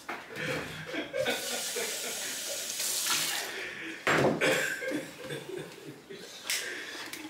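Kitchen tap running into a stainless steel sink for a few seconds, cut short by a sharp clatter about four seconds in, the loudest moment, then smaller knocks of things being handled.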